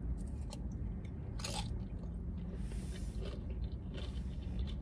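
A person biting into a tortilla chip loaded with sour cream and burrito-bowl toppings and chewing it, crisp crunches with the loudest about a second and a half in.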